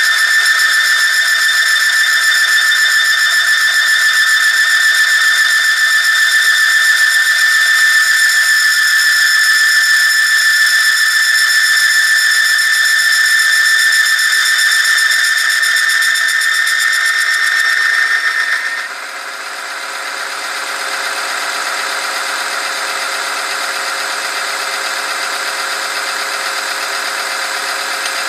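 Oil film strength test machine running under load: its electric motor turns a steel ring against a test sample in hot engine oil, with a steady high-pitched squeal. About 19 seconds in the squeal cuts off and the machine carries on with a slightly quieter, rougher running sound.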